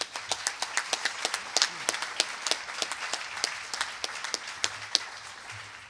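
Audience applauding, with single claps close by standing out sharply from the general clapping. It fades away near the end.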